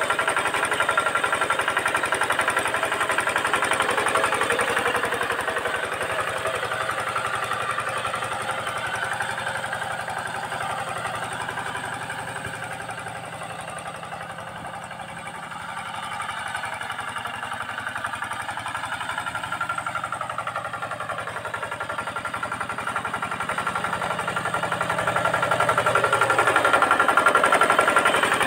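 Single-cylinder diesel engine of a Quick two-wheel hand tractor running steadily under load while pulling a harrow through dry soil, with a fast, even chugging beat. It grows fainter as the tractor moves off in the middle, then louder again as it comes back near the end.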